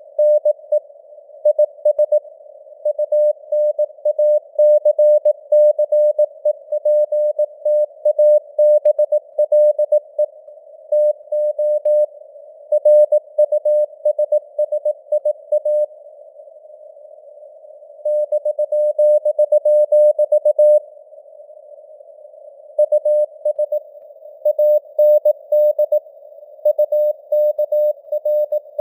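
Morse code (CW) sent at 18 words per minute as a single-pitch tone keyed on and off in dots and dashes, over simulated radio-receiver hiss, with the signal strength fading up and down (QSB). The keying breaks off twice for about two seconds in the second half.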